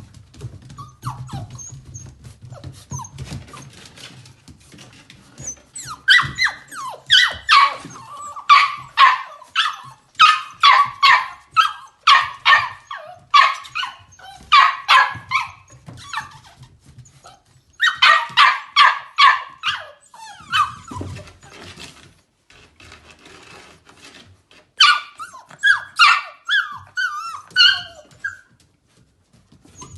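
Dog barking in three quick runs of short, high yaps at about two a second, with pauses between the runs.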